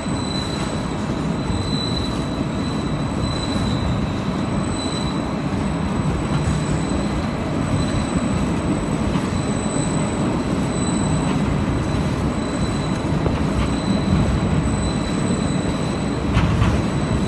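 Towing carriage of a ship-model test tank running along its rails while it tows a racing kayak: a loud, steady rumble with a thin, steady high whine.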